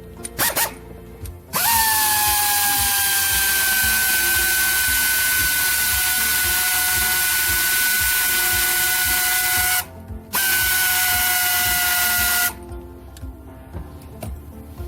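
A power tool running with a high, steady whine over a loud hiss, the whine settling slightly lower in pitch. It runs for about eight seconds, stops briefly, then runs for about two seconds more. A few clicks come before it starts.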